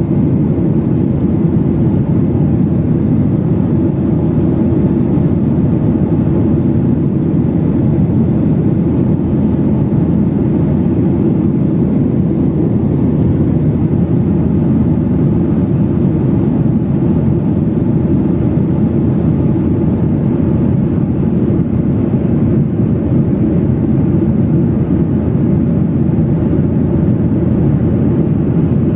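Steady cabin noise of a jet airliner in level flight: an even, low rush of engines and airflow heard from inside the passenger cabin.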